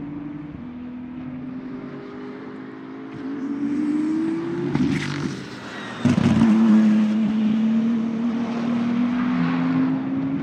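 BMW M4 GT3 racing car's 3.0-litre twin-turbo inline six running at speed on track, its note rising as it accelerates. About six seconds in it is suddenly much louder and close, the note climbing steadily.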